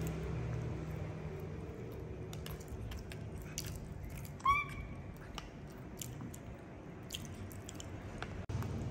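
Baby monkey eating soft steamed pumpkin off a metal fork: quiet chewing with scattered light clicks of the fork. One short, sharp rising squeak sounds about four and a half seconds in.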